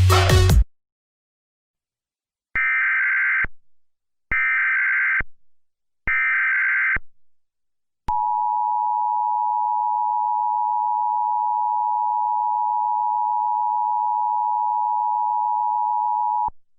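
Music cuts off, then come three one-second bursts of Emergency Alert System SAME header data tones, about a second apart. After them the two-tone EAS attention signal (853 and 960 Hz together) holds steady for about eight seconds and stops abruptly.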